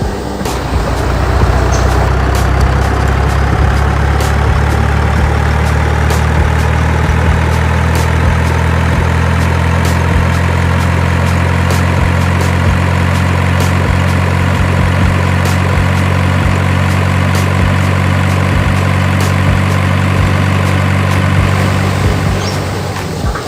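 Heavy vehicle engine running steadily with a low hum, starting about a second in and fading out near the end, with scattered clicks and a faint, slowly rising whine.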